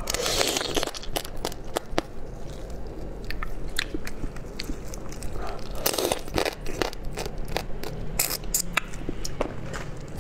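Close-miked biting and chewing of shell-on seafood in spicy sauce, with many small crunches and clicks throughout. There are two louder, longer bursts, one right at the start and one about six seconds in.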